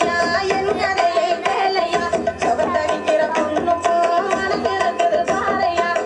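Loud Tamil dance song music with a steady drum beat and melodic instruments.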